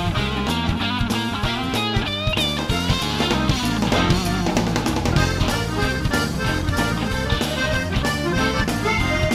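Background music with drums and pitched instruments playing throughout.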